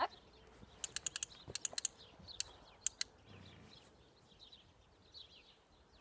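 Small birds chirp faintly throughout. Between about one and three seconds in comes a quick run of sharp clicks, while a horse gets up from lying in the sand.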